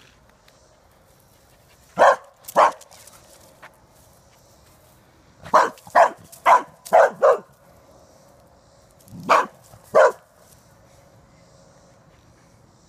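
Dog barking at an armadillo, in short sharp barks: two, then a quick run of five, then two more.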